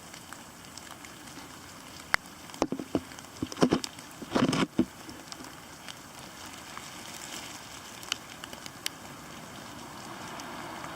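Steady rain pattering, with a cluster of sharp clicks and a brief rustle about two to five seconds in.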